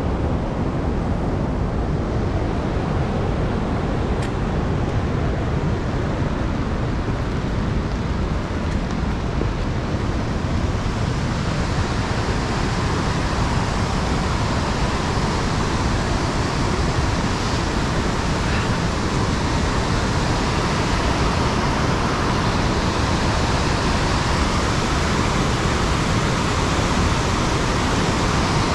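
Steady rushing of a waterfall and white-water rapids, a dense, unbroken wash of water noise that grows brighter and fuller about ten seconds in.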